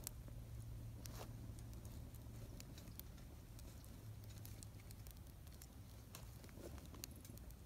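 Faint scattered crackles and clicks from a small twig fire burning in a Firebox stove as dry sticks are handled and fed into it, over a faint steady low hum.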